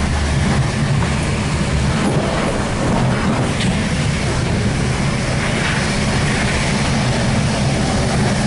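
Steady rolling rumble of an Intercity 2 double-deck coach running along the track, heard from inside the passenger compartment.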